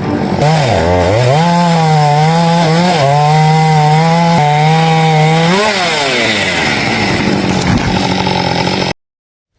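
Two-stroke chainsaw revving up and then running at a steady high speed while cutting through a tree trunk. About six seconds in, the revs fall away. The sound cuts off abruptly near the end.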